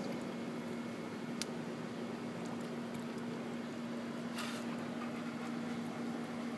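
A Doberman nosing at water balloons floating in a bucket of water, making small sloshing sounds, with a sharp click about a second and a half in and a short splash about four and a half seconds in, over a steady low machine hum.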